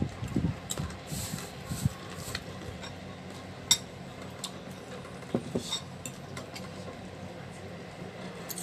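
Eating noodle soup: a few sharp clinks of a metal fork and ceramic spoon against a ceramic bowl, the loudest a little under four seconds in, with quieter mouth sounds of eating between them.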